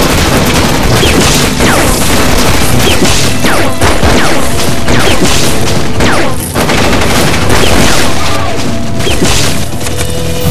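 Dense, continuous gunfire and booming effects over film music.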